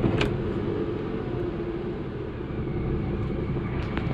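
Renault Kwid's three-cylinder petrol engine catching right at the start, then idling steadily. It starts normally because the key fob's cell is now fitted the right way round, so the immobiliser no longer blocks cranking.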